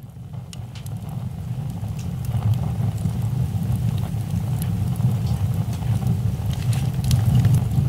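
Wood fire burning: a low steady rumble of flames with scattered sharp crackles and pops. It fades in from silence and grows louder.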